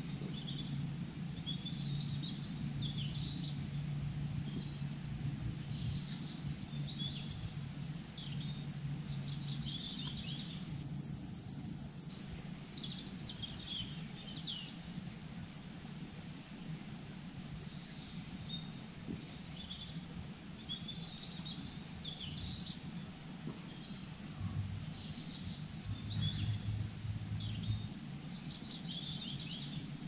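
Countryside ambience: a steady high insect drone with birds chirping in short repeated phrases. A low hum sits underneath, fading after the first ten seconds and swelling again for a few seconds near the end.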